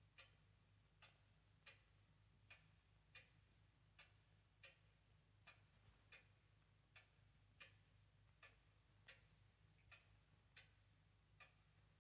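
Faint ticking of a clock, about four ticks every three seconds, steady and even, over a low steady hum.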